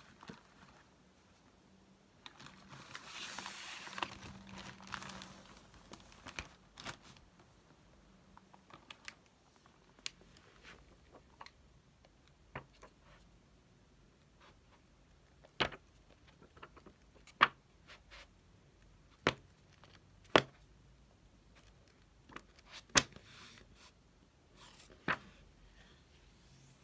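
Crinkling rustle of something being handled for a few seconds, then a series of about six sharp, separate clicks and taps of small objects being handled.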